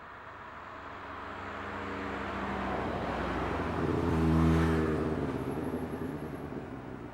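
A motor vehicle drives past. Its engine grows louder over several seconds, is loudest about four and a half seconds in, then fades as its pitch drops.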